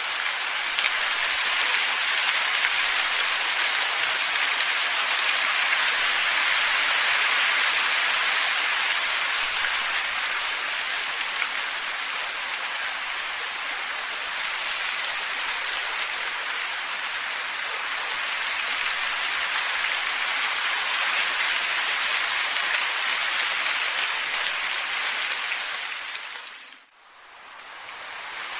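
Steady, even rushing of wind, a soft hiss without any tone. Near the end it fades out briefly and swells back in, as at the seam of a looped track.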